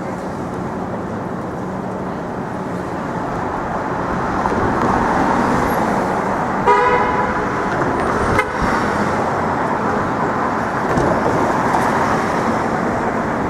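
City street traffic running steadily, with a vehicle horn giving one short toot about seven seconds in and a sharp knock just after.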